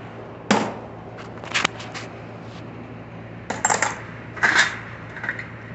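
Loose metal hand tools and sockets clanking against each other as they are rummaged through in search of a 24 mm socket: a handful of separate sharp metallic clinks.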